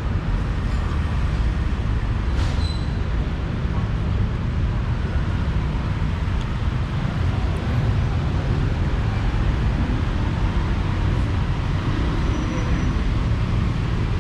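Steady low rumble of background noise, with a brief click about two and a half seconds in.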